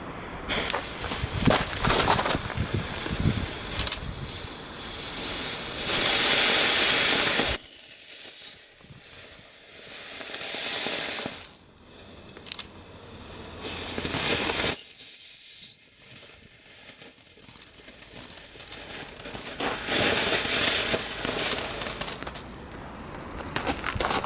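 Small fireworks burning off with a spraying hiss that comes and goes in several spells. Twice, about eight and fifteen seconds in, a high whistle slides down a little in pitch for about a second and cuts off suddenly; these are the loudest moments.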